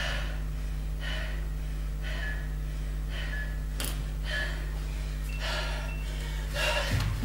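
A woman breathing hard, about one heavy breath a second, winded from high-intensity cardio exercise, over a steady low hum.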